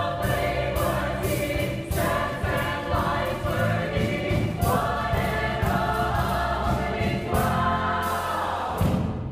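A mixed chorus singing sustained chords in harmony, with piano and drums accompanying and regular sharp percussion strokes through it.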